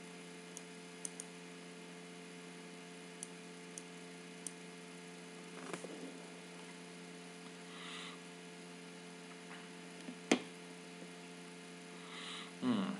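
Steady electrical hum, with faint computer-mouse clicks: a few small ones in the first five seconds and a sharper one about ten seconds in. A brief rustle near the end.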